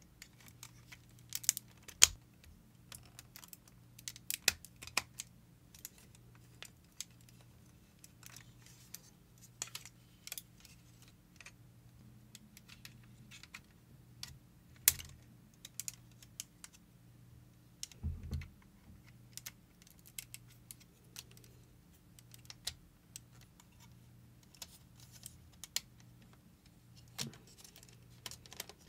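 Irregular clicks, taps and a few sharper snaps of plastic and metal parts on a Metal Composite Zeta Plus action figure being moved and locked into place as it is reconfigured by hand, over a faint steady low hum.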